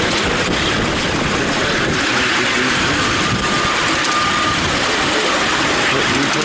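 Miniature railway train behind a model BR Class 37 locomotive running along the track, heard from a riding car: a steady noise of wheels on rail and the moving train, with a brief thin tone about three seconds in.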